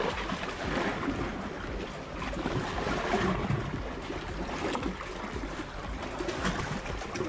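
Water lapping and sloshing against concrete, a steady irregular wash.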